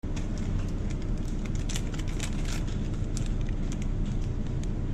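Steady low background hum with irregular crinkling and crackling of a plastic bag being handled.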